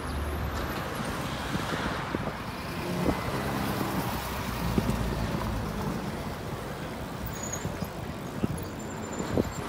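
City street traffic: cars driving past and pulling away at low speed, a steady mix of engine rumble and tyre noise.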